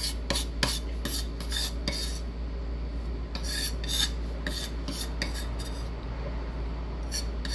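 Kitchen knife working chopped onion and epazote on a cutting board: short, irregular chopping and scraping strokes, bunched into a quick run a little past the middle and two more near the end.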